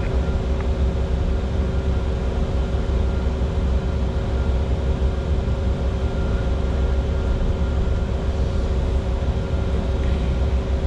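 Steady cockpit noise of a Bombardier Challenger 605 business jet in descent: a low rumble of airflow and its rear-mounted turbofans, with a few faint steady tones over it.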